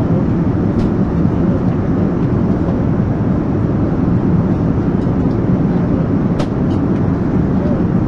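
Steady cabin rumble inside an Airbus A320 passenger cabin, with a couple of faint clicks, the clearer one about six seconds in.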